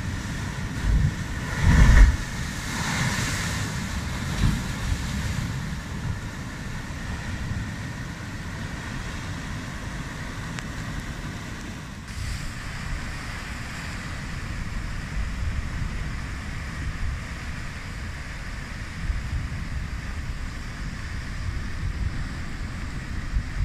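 Wind buffeting the microphone in gusts, strongest about two seconds in, over the steady wash of surf breaking against sea cliffs.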